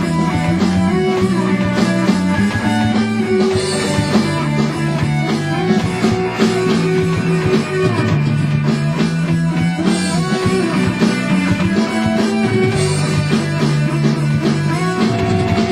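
A rock band playing live: electric guitars ringing over a drum kit, with held low notes that change every few seconds.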